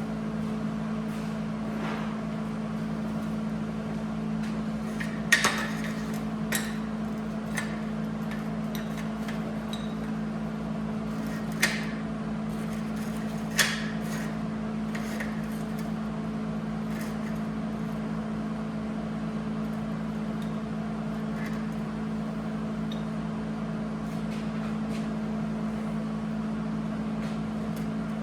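Welding on square steel tubing: a steady buzzing hum that starts just before and runs on unbroken, with a few sharp metallic clicks between about five and fourteen seconds in.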